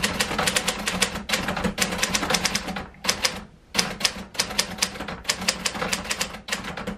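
Typewriter being typed on quickly: a fast run of sharp key clacks, several a second, with a short break about three seconds in.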